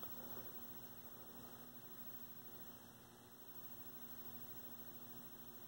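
Faint, steady mains hum with a low hiss.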